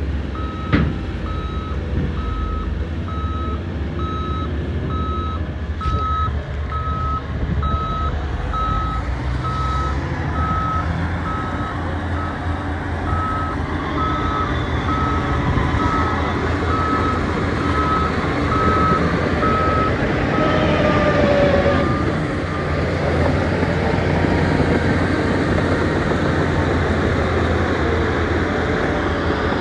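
Reverse alarm on a piece of heavy construction equipment beeping in a steady single tone about once a second over the machine's engine running; the beeping stops about three quarters of the way through while the engine keeps running.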